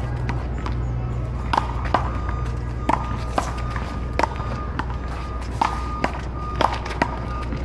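Ball being struck back and forth with paddles during a rally: about nine sharp hits and bounces at uneven intervals, each with a short ring, over a steady low hum.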